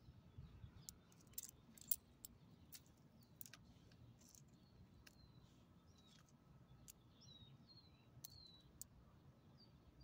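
Faint metallic clinks of a dog's collar ID tag and leash clip jingling as the dog sniffs about, several in the first few seconds, with a few short high bird chirps in the background later on.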